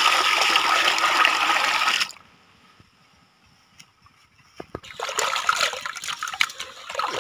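Water poured into a metal basin of shelled field snails, a steady splashing pour that stops about two seconds in. After a short quiet, hands swish and rub the snail meat in the water, sloshing and splashing it to rinse it clean.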